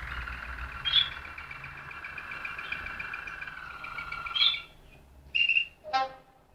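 Malinois (Waterslager) song canary singing: a long unbroken rolling trill that stops about four and a half seconds in, followed by a few short separate notes near the end.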